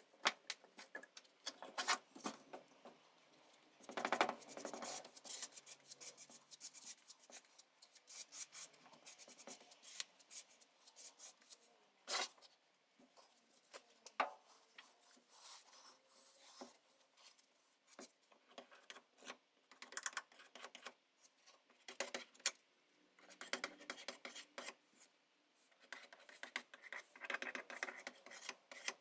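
Plastic spreader scraping and mixing white filler on a paper mixing pad, then smearing it across a metal scale pan: irregular runs of dry scratches and small clicks, the loudest scrape about four seconds in.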